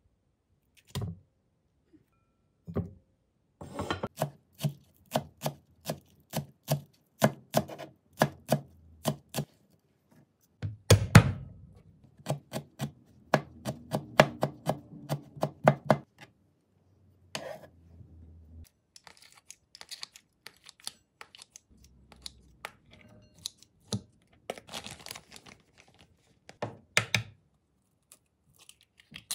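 Kitchen knife chopping ginger on a plastic cutting board, a long run of quick strokes that speeds up to about four a second. Softer handling noises follow, with a couple of knocks near the end as an egg is cracked.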